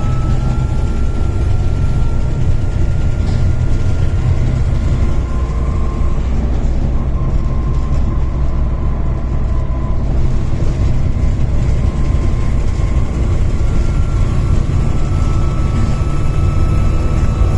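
Volvo B7TL bus's turbocharged D7C six-cylinder diesel running under way: a steady low engine drone with a high turbo whine over it. The whine drops in pitch about a third of the way in and climbs back near the end.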